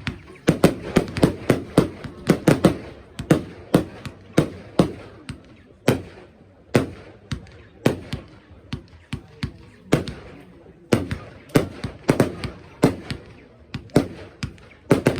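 Fireworks going off in quick, irregular succession: sharp echoing bangs of aerial shells and batteries, several a second, with short lulls between volleys.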